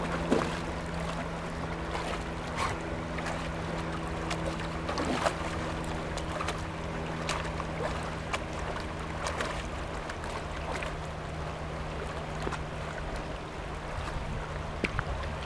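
Shallow river water rushing steadily, with repeated short splashes from a Bouvier des Flandres wading and dunking its head in the current. A steady low hum runs underneath.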